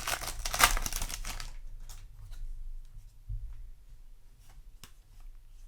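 Foil booster pack wrapper crinkling and tearing as it is opened, for about a second and a half, then faint clicks and rustles of trading cards being handled.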